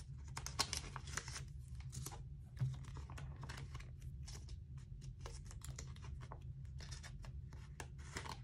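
Clear plastic binder sleeves and plastic card holders crinkling and clicking as photocards are handled and slid into the pockets, in quick irregular ticks and rustles over a low steady hum.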